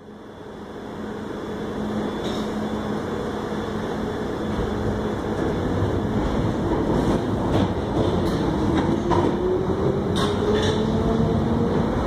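London Underground 1973 tube stock train running out of a platform, a steady rumble with a motor whine that rises in pitch through the second half as the train speeds up. Several sharp clicks are heard, mostly in the second half.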